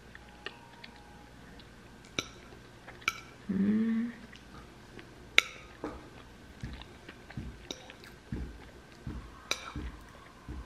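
Someone eating: cutlery clicks sharply against a plate a few times, with soft chewing sounds. A brief hummed "mm" comes about three and a half seconds in.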